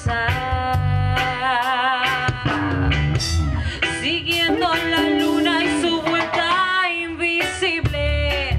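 A woman singing a Spanish-language pop-rock song with a live band, drums and electric bass behind her, holding long notes with vibrato. The bass and low drums drop out for a few seconds in the middle and come back in near the end.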